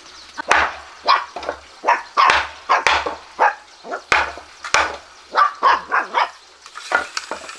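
Young puppy yapping in a long run of short, high barks, about two or three a second.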